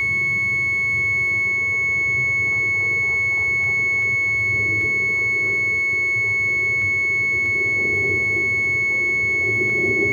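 A steady high-pitched electronic tone holds without a break over a low hum, with a second, fainter tone underneath.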